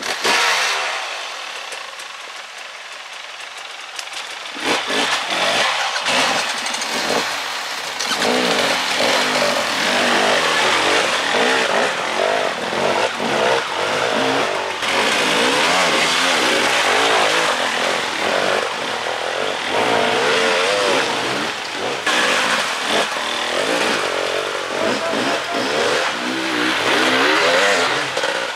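300cc enduro motorcycle engine being ridden off-road. It is quieter for the first few seconds, then revs hard in quick, repeated throttle bursts from about five seconds in.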